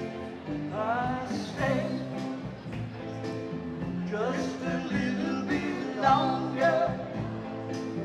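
Live rock-and-roll band playing: electric guitars and drums with a steady beat, and a melody line over them that bends up and down in pitch.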